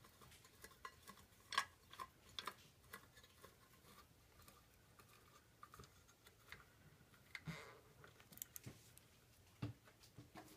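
Faint, scattered clicks and taps of hand-tightening the screw that holds a wheel bracket on the bottom of an electric radiator heater, in an otherwise near-silent room.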